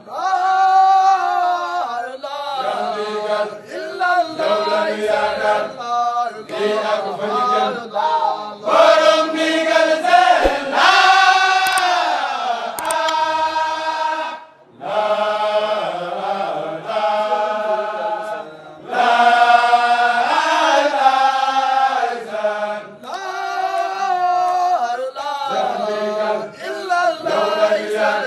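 Men's voices chanting a Mouride zikr together, a repeated Sufi devotional chant sung in long melodic phrases. The singing dips briefly about halfway through and again a few seconds later.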